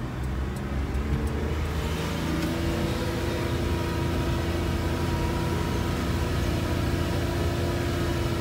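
Car engine running and road noise heard from inside the moving car's cabin: a steady low rumble, with a level engine hum coming in about two seconds in and holding.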